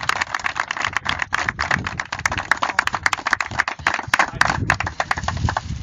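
A small group of people applauding with quick, irregular hand claps.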